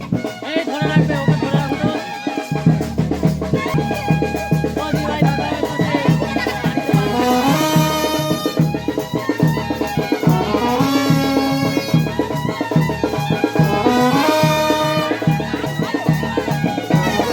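Music with a steady drum beat under a melody of long held notes.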